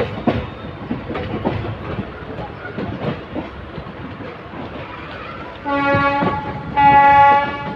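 A train running through the station, its wheels clattering over the rail joints. Near the end a locomotive horn sounds two blasts, the second louder.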